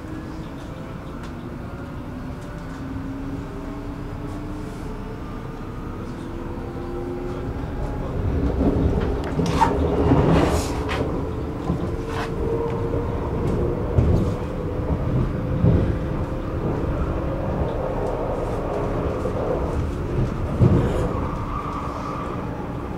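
Electric commuter train running on the rails, with the traction motors' whine slowly rising in pitch as it gathers speed. From about eight seconds in the wheel rumble grows louder, with several sharp clanks over rail joints or points.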